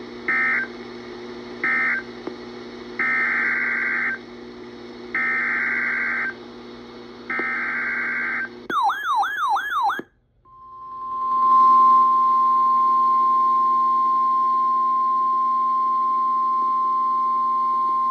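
Emergency Alert System SAME data bursts, a two-tone digital warble: two short end-of-message bursts, then three longer header bursts for the next alert. About nine seconds in comes a second of fast-warbling sweeping tone. Then the steady 1050 Hz NOAA Weather Radio warning alarm tone begins and holds.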